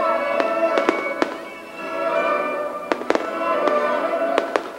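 Fireworks shells bursting in sharp bangs, about ten of them in quick clusters, over the show's music with long held notes.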